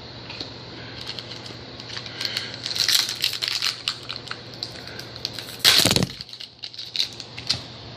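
A foil trading-card pack wrapper crinkling and crackling as it is torn open, with one loud bump just before six seconds in as the pack slips in the hands.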